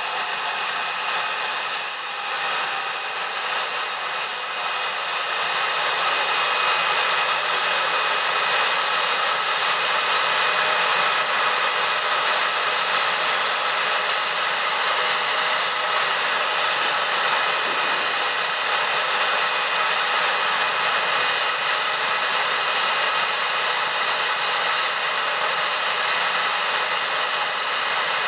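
Homebuilt turbocharger jet engine running loud and steady with a high turbine whine that falls in pitch over the first several seconds, then holds level.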